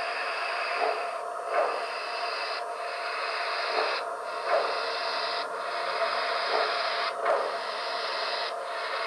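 Sound decoder of an HO-scale Santa Fe 3751 Northern steam locomotive model playing slow steam exhaust chuffs through its small speakers. The hiss comes in a slow, even rhythm, with a beat roughly every second and a half, as the model creeps along.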